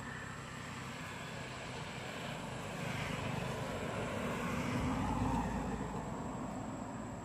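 Distant engine noise, a low rumble that swells about five seconds in and then eases, with a steady faint high-pitched tone throughout.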